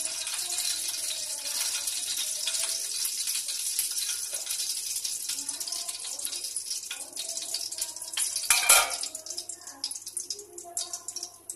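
Refined oil heating in a kadhai over a gas burner, a steady high hiss with fine crackling. One louder pop comes about nine seconds in, and the hiss dies down after it.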